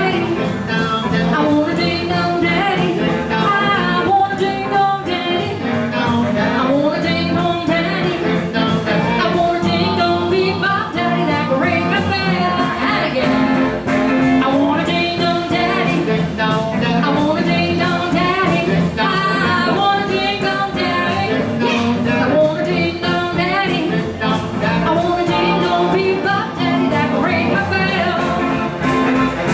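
Live blues band playing in the 1950s style: electric and acoustic guitars and drums behind a lead vocal.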